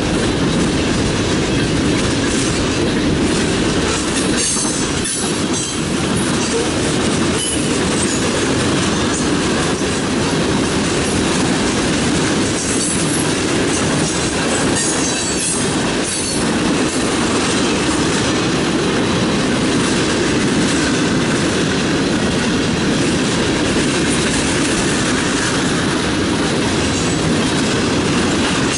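Freight cars (boxcars, covered hoppers, a tank car) rolling past close by: a steady rumble and clatter of steel wheels on the rails, with brief high-pitched wheel squeals now and then.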